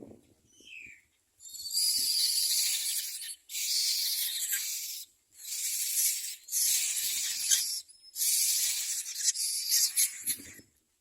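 Common myna nestlings giving harsh, hissing begging calls in a run of about six rasping bursts, each a second or so long with short breaks between: the chicks begging for food.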